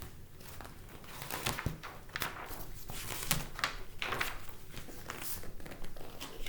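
A hardcover picture book being handled and opened, its pages turned: a string of irregular rustles and soft knocks.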